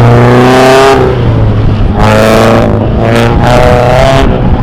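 Car engine being driven hard, revving up and falling back several times, with short bursts of hiss as the revs drop.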